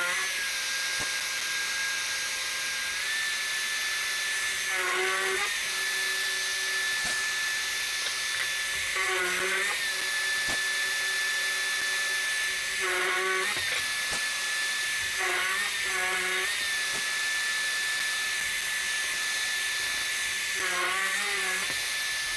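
A Bosch drill press running steadily with a high whine while boring dowel holes into a clamped wooden block. Several times, every few seconds, the note dips briefly as the bit is fed into the wood.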